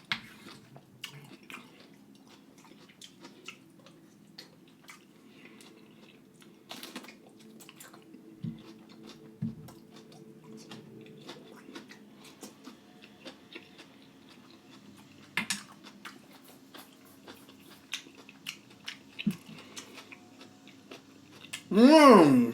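Close-miked chewing and mouth sounds of someone eating, many small wet clicks, over a faint steady drone from a weed whacker or lawnmower running outside. Near the end comes a brief loud pitched sound that rises and falls.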